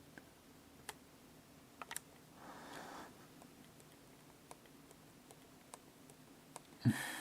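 Scattered single clicks of computer keyboard keys being pressed, with quiet gaps between them, over a faint steady hum from the running PC. A louder knock comes near the end, followed by a short rustle.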